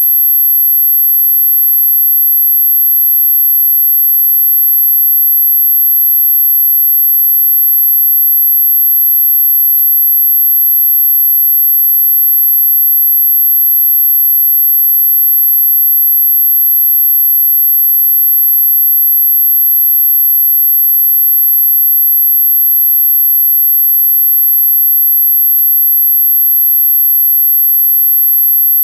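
A single very high-pitched electronic tone, held steady and unchanging, with two faint clicks, one about ten seconds in and one about three seconds before the end. It is an anti-bark tone played to make dogs stop barking.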